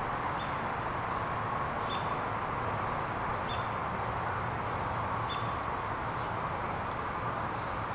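Steady outdoor background rush with a low rumble, over which a bird gives short high chirps every second or two.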